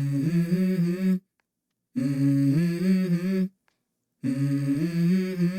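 Hummed "mm-hmm" vocal phrases opening a hip-hop song: three hummed phrases, each a little over a second long, with short silent gaps between them.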